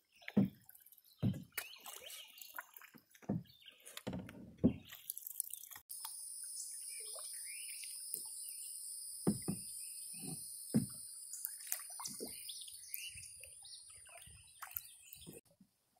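Canoe paddling: a plastic paddle blade dipping and pulling through slow river water at irregular intervals, with splashes and drips. A steady high-pitched drone sits in the background from about six seconds in.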